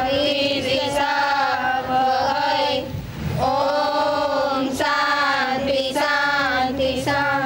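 A group of girls singing a prayer together in one melody, in long held phrases with a short pause about three seconds in.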